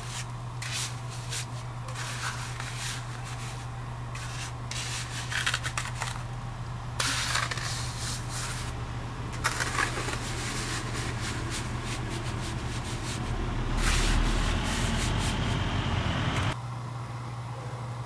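Hand float scraping over wet concrete in a small wooden form, in repeated short strokes as the slab surface is smoothed. A louder low rumble joins near the end for a couple of seconds, then cuts off.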